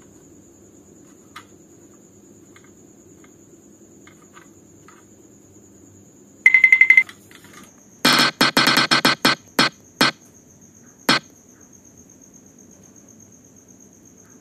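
Spin-wheel game sound effect: a short electronic beep, then a run of about ten sharp ticks that space out and stop, like a prize wheel slowing to a halt.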